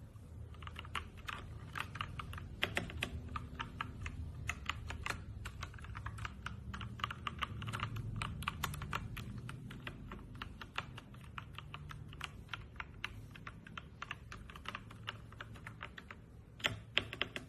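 Typing on a LEAVEN H96 mechanical keyboard: a fast, irregular run of key clicks and clacks.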